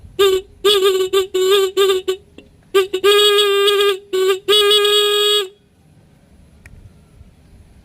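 Motorcycle horn beeping in an uneven string of short blasts, then two longer blasts of a second or so each, one steady pitch throughout.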